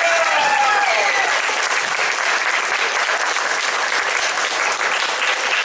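Audience applauding: dense, steady hand-clapping, with a few cheering voices in the first second or so.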